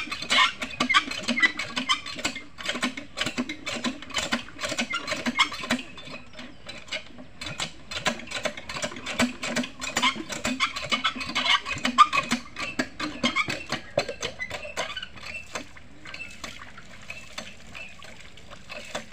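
Cast-iron hand pump being worked by hand: irregular clanks and knocks of the handle and rod, with squeaks and water splashing. It eases off in the last few seconds.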